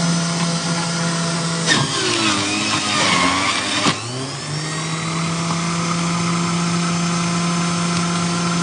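Small electric motor humming steadily. It is switched off with a click about two seconds in and winds down, then is switched back on with a click about four seconds in and runs up to speed again.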